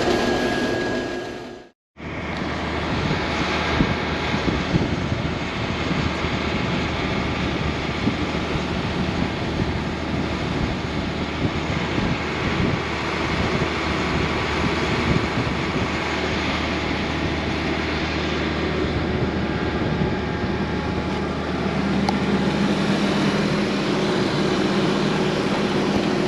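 A 1480 combine running steadily, its engine and machinery making a continuous mechanical noise. The sound cuts out briefly about two seconds in, and a steady low hum comes in near the end.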